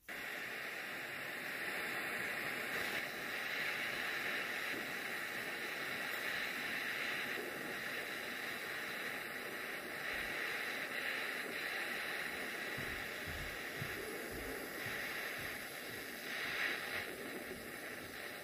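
Small gas soldering torch's flame hissing steadily while 1/16 silver solder is melted onto an orthodontic expander, with the hiss swelling and easing slightly as the flame moves.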